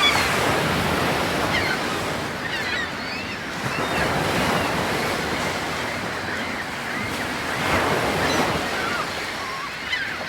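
Ocean waves washing in as a steady rush that swells about every four seconds.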